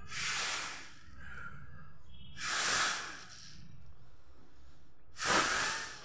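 Three hard puffs of breath blown through a plastic UFO-flyer blow toy's tube to spin its propeller and launch it, each a breathy rush under a second long, a couple of seconds apart.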